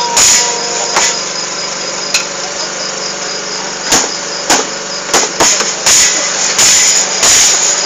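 Irregular knocks and taps on makeshift percussion, a metal pot and plastic containers struck by hand, coming thicker in the second half, over a steady machine hum.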